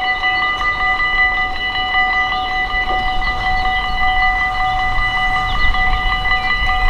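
Level-crossing warning bells ringing in a quick, even repeating pattern, the signal that a train is approaching, while the half-barriers are down. A low rumble builds near the end.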